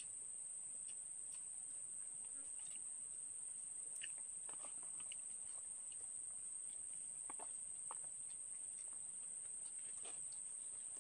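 Steady high-pitched insect drone, with scattered faint rustles and ticks of paper food wrappers handled during eating.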